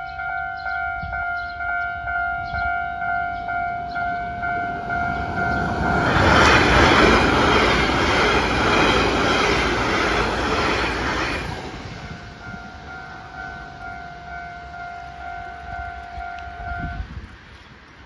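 Level-crossing warning bell ringing in a repeating pattern, about twice a second. A TEMU1000 Taroko Express electric multiple unit rushes past through the crossing and drowns the bell for about five seconds in the middle. The bell carries on after the train has gone and stops near the end.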